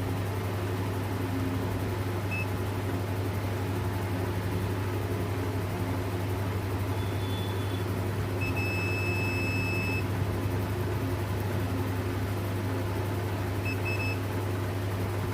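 Steady low electrical hum under a constant hiss of workshop background, with a handful of short high electronic beeps, one lasting about a second and a half near the middle and a quick double beep near the end.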